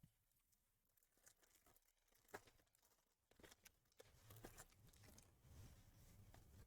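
Faint rustling and tearing of a trading-card pack wrapper being opened, with light clicks of cards being handled, mostly in the second half.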